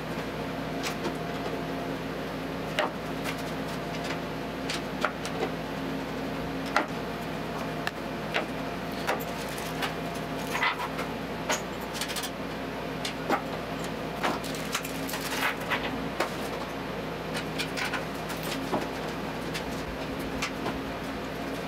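Scattered small clicks and taps of screws and cross dowels being handled and fitted into an aluminium rail on a wooden frame, over a steady electrical-sounding hum.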